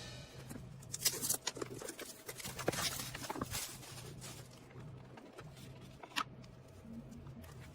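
Hands handling and opening product packaging: faint, irregular rustling and scratching with small clicks, busiest in the first few seconds, and one sharper click later on.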